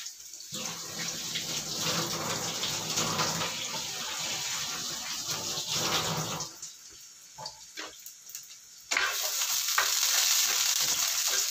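Water running from a kitchen tap into a stainless-steel sink, a steady hiss that stops about six seconds in. After a quieter stretch with a few clicks, the tap comes back on abruptly and runs louder to the end.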